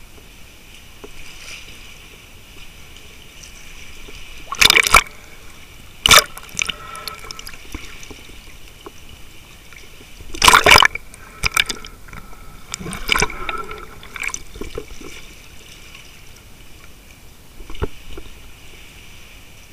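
Sea water sloshing and splashing around a camera moving in and out of the water at the surface, with several loud splashes, the loudest about five and ten seconds in.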